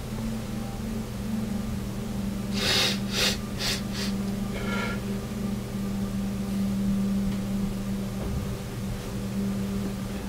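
A man's breathing: four quick, forceful breaths in a row about two and a half seconds in, then a brief pitched sound, over a steady low hum.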